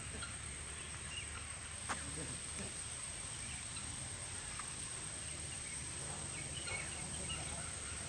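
Outdoor ambience: a steady high-pitched insect drone over a low rumble, with scattered faint bird chirps and one sharp click about two seconds in.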